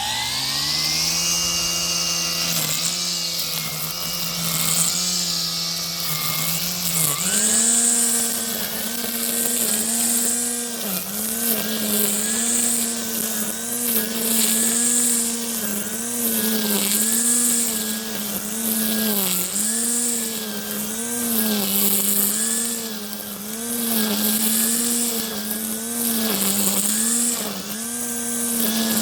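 Parkside 40V cordless multi-tool's brushless motor driving the line-trimmer head. It spins up at the start and steps up in speed about seven seconds in. After that its whine dips briefly and recovers roughly every second as it cuts, with repeated hissing swishes.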